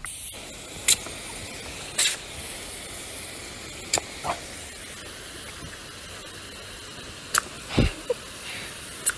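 Garden hose spray nozzle spraying a steady hissing jet of water, with several short sharp clicks and knocks over it, one near the end with a low thump.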